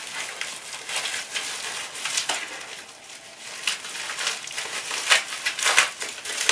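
Packing wrap crinkling and rustling in irregular crackles as a small wrapped part is unwrapped by hand.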